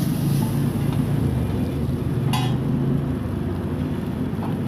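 Noodles being stir-fried on a large flat iron griddle, the slotted metal spatula scraping and tossing them over a steady low rumble, with one short metallic clink about halfway.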